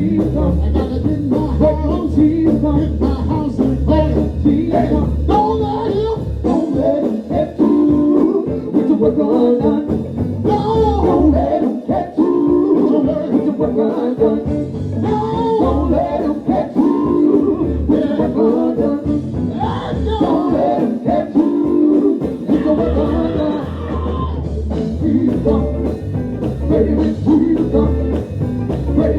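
Live gospel group performing: voices singing over a band with a pulsing bass line, the bass thinning out through the middle of the passage.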